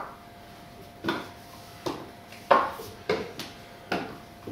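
Shoes being set down and knocked on the shop floor: about six short, hard knocks at uneven spacing, each with a brief ring, over a faint steady hum.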